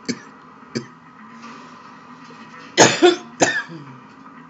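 A person coughing a few short times: two light coughs near the start and a louder cluster about three seconds in.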